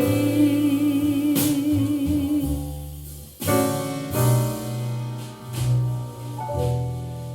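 A soul ballad played back through a Telefunken HL 870 CD three-way loudspeaker. A held sung note with vibrato fades out about three seconds in, and then keyboard chords play over a steady bass line.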